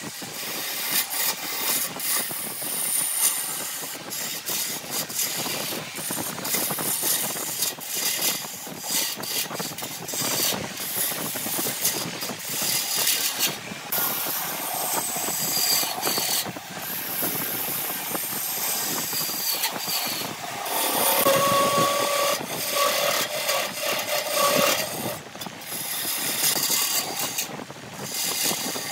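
Wood lathe turning a blank of aged grapefruit wood while a gouge cuts it: a continuous scraping, hissing cut that swells and dips as the tool moves along the piece. About two-thirds through, a steady pitched hum sounds under the cutting for a few seconds.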